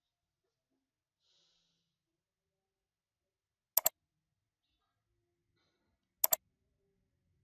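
Computer mouse button clicking: two sharp double clicks, about two and a half seconds apart, with near silence around them.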